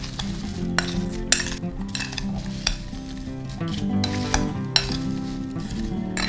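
A utensil stirring, scraping and clinking against a mixing bowl while batter is mixed, with repeated sharp taps and scrapes.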